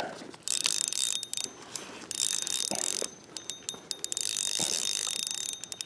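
Spinning reel being cranked to retrieve a lure: a fine mechanical whirring of its gears with a faint high whine, in spells with a short pause about three seconds in.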